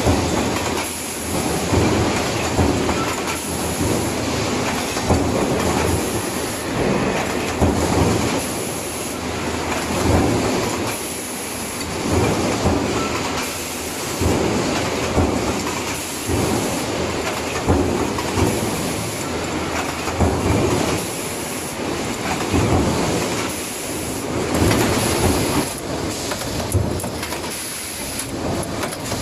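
Mechanical stamping press running continuously with an in-die riveting die, each stroke coming as a loud clatter roughly once a second over steady shop machinery noise.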